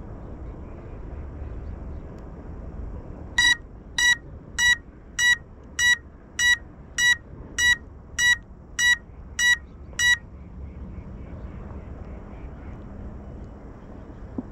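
Beeper on a crashed FPV quadcopter sounding a dozen short, evenly spaced electronic beeps, a little under two a second, which stop about ten seconds in.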